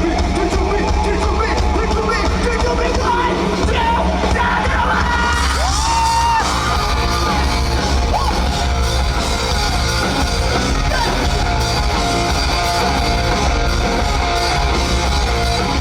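Live rock band playing at full volume, with sung and shouted vocals over the music.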